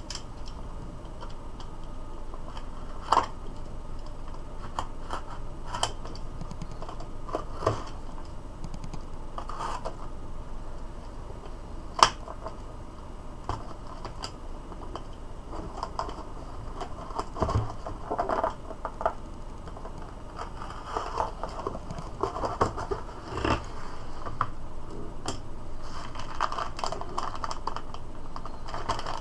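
A package being unpacked by hand: scattered clicks, taps and scratching as the box and packaging are handled, with denser rustling and scraping in the last third.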